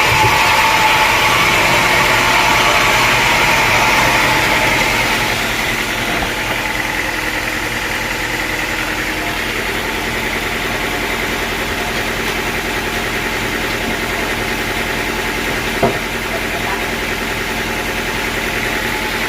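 Sawmill engine running steadily. For the first few seconds the saw is still cutting through wood, then the cut ends and the engine runs on at idle. There is a single knock about sixteen seconds in.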